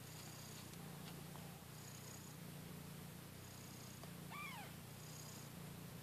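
Nursing mother cat purring steadily, the purr swelling and fading with each breath about once a second. About four seconds in, a newborn kitten gives one short mew that rises and falls.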